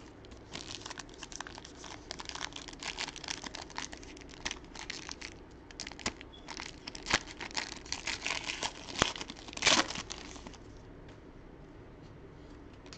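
Plastic wrapping crinkling and tearing as a sealed trading-card pack is opened by hand: about ten seconds of irregular crackling, with the sharpest rip near the end, then it stops.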